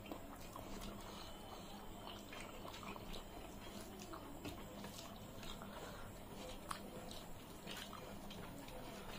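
Eating by hand: fingers mixing rice and curry on metal plates, with soft wet squishes, scattered small clicks and some chewing, over a low steady hum.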